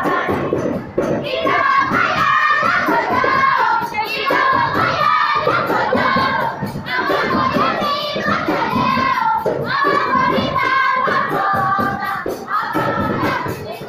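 A congregation singing together in unison, with steady rhythmic hand clapping at about three claps a second.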